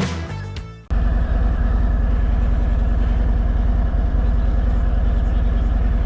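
A Harley-Davidson Road Glide Special's Milwaukee-Eight V-twin engine running steadily with an even pulsing beat. It follows the last second of fading guitar intro music.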